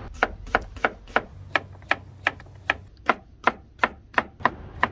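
Chef's knife slicing vegetables on a bamboo cutting board, the blade knocking on the wood in a steady rhythm of about three cuts a second.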